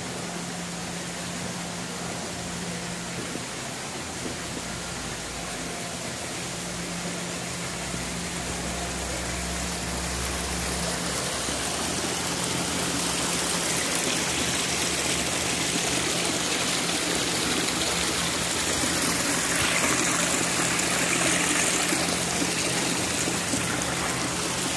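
Small stream of water trickling and splashing over rocks, getting louder about halfway through, over a steady low hum.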